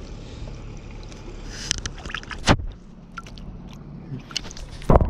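Close handling noise: clothing rubbing on the microphone as a rubber-mesh landing net is moved about, with scattered clicks, a sharp knock about halfway through and a heavier thump near the end.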